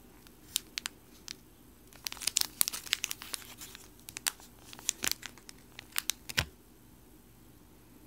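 Clear OPP plastic packaging bag crinkling and crackling as it is handled and turned over in the hands. There are scattered crackles, a dense cluster about two to four seconds in, and a few more before they stop at about six and a half seconds.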